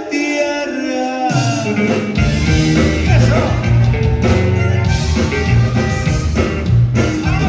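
Live conjunto band playing: accordion lead over electric bass, guitar and drum kit. The song opens with accordion alone, the bass comes in after about a second and the drums join shortly after, with the full band playing a steady beat for the rest.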